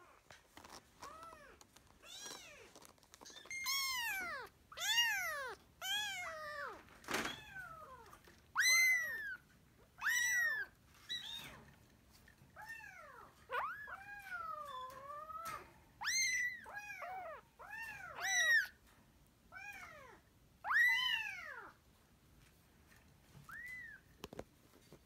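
Kitten mewing over and over in short, high calls that rise and fall, about twenty of them with one longer, wavering mew around the middle. A single knock sounds about seven seconds in.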